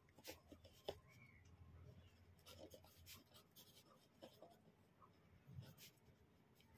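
Ballpoint pen writing on paper: faint, irregular scratching strokes.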